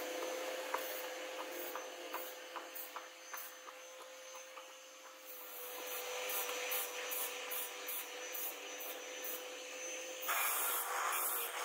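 Hand tools scraping and rubbing on a wooden knife-handle blank, with light irregular taps, over a faint steady hum. About ten seconds in the scraping turns suddenly louder and rougher.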